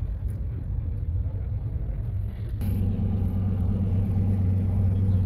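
Car engine idling, a low steady rumble that grows fuller and a little louder about two and a half seconds in.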